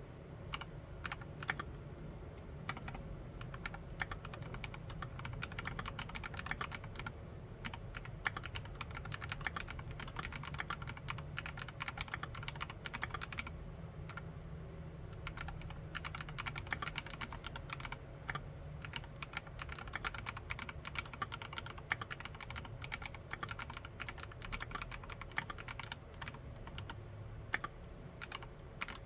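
Fast, continuous typing on a Monstargear Alu XO v3 mechanical keyboard fitted with Keychron K Pro Mint switches: a dense stream of keystroke clacks, thinning briefly a couple of times.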